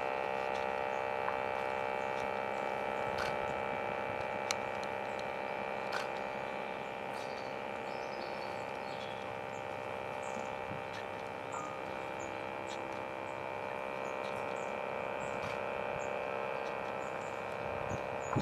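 A steady, unchanging drone made of many held tones sounding together, with a few faint high chirps and clicks scattered over it.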